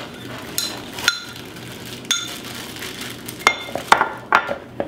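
Kitchen utensils knocking against a glass measuring jug and a mixing bowl while melted butter is poured and scraped out: about half a dozen sharp clinks with short ringing, closer together in the second half.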